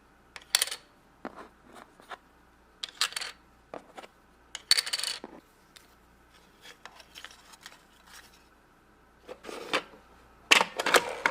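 Toy coins and pretend paper money being put away into a toy cash register's drawer: scattered clicks and clinks with short rustles, a cluster of them near the end.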